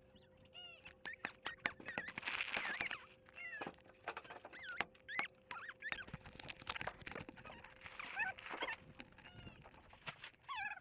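Small birds chirping over and over, short quick chirps scattered throughout, with occasional clicks and taps.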